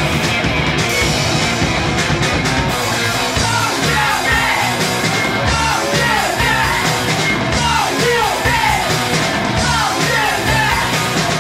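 Punk rock band playing live, a dense, loud wall of band sound, with shouted vocals coming in about three or four seconds in.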